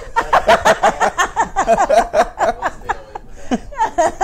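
A man and a woman laughing hard together, in quick repeated ha-ha's; the laughter eases off about two and a half seconds in and picks up again near the end.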